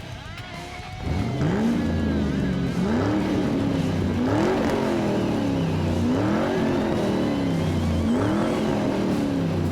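A car engine revved repeatedly, about five times: each rev climbs quickly in pitch and then falls away slowly. The revving starts suddenly about a second in.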